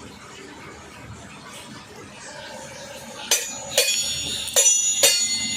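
Four sharp metallic clinks in the second half, about half a second apart, each leaving a brief high ringing tone.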